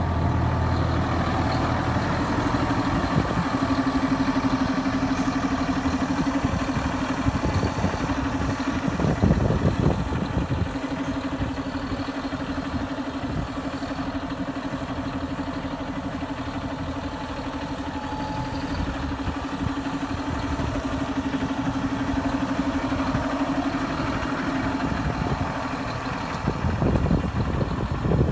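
JCB Fastrac 8310 tractor's 8.4-litre diesel engine idling steadily, with a couple of brief louder noisy stretches about nine seconds in and near the end.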